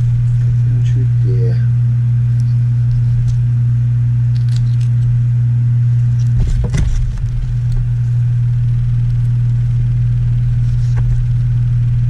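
A loud, steady low hum runs throughout. Over it come scattered faint clicks and scrapes, with a louder bump about six and a half seconds in, as a knife cuts and joints a raw polar bear paw on a cardboard-covered table.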